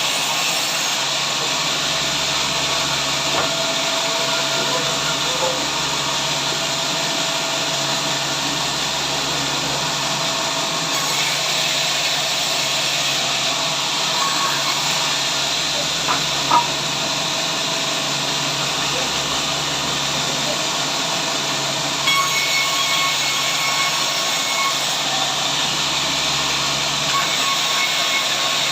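Sawmill saw running steadily with an even, hissing machine noise, with one sharp tick about halfway through.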